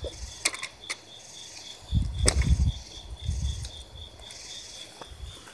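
Crickets chirping in a steady, evenly pulsing high trill, over sharp clicks and low thumps of airsoft gun parts being handled and unscrewed; the loudest moment is a cluster of thumps and a click about two seconds in.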